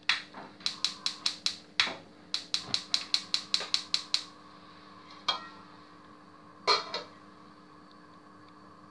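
Gas stove burner's electric igniter clicking rapidly, about seven clicks a second, first a short run and then about a dozen more until the flame catches. Then a metal lid is set on the saucepan with two ringing clanks.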